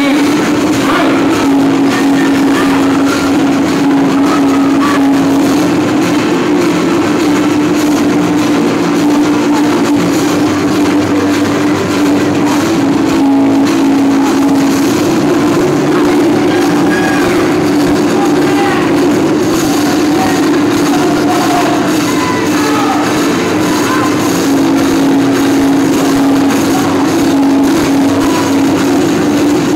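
Loud music filling a large gymnasium, held on a steady droning low note that shifts slightly in pitch, with scattered voices and calls from the crowd.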